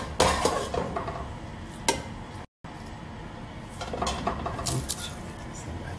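Metal ladle clinking and scraping against a large metal cooking pot as red macaroni is spooned in layers over rice for koshari, with a few sharp clinks in the first two seconds and lighter clatter later.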